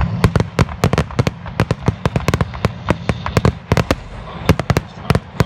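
Aerial fireworks crackling: dozens of sharp, irregular pops and cracks in quick succession.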